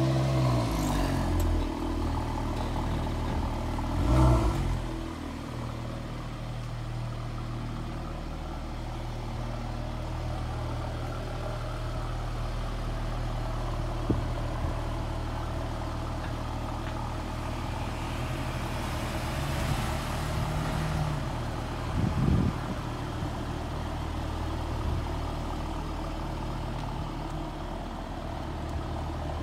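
Mercedes-Benz CLS 450's turbocharged 3.0-litre inline-six, heard at its exhaust, idling steadily. Engine speed falls back to idle over the first second or two, with a short rev about four seconds in and another brief blip about three-quarters of the way through.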